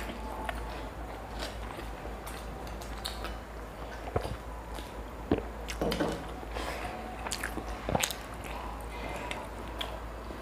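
Close-up eating sounds of people biting and chewing soft steamed momos: irregular wet mouth clicks and squishes, with a few louder bites, over a steady low hum.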